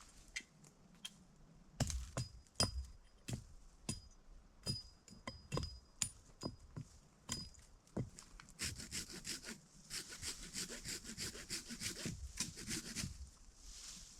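Saw cutting wood: a string of separate knocks and short strokes, some with a faint metallic ring, then quick, steady back-and-forth sawing strokes from about eight seconds in.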